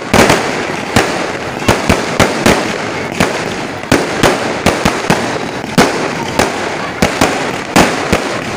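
Fireworks bursting in the air: an irregular run of sharp bangs, about two a second, over a steady noisy background.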